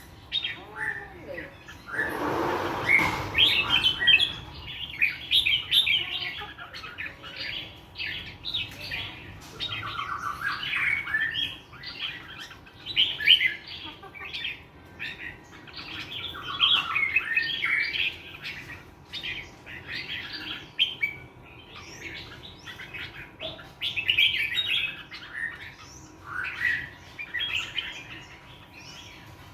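A songbird singing in rapid, varied chirping phrases broken by short pauses. A louder, rough burst of noise comes about two seconds in.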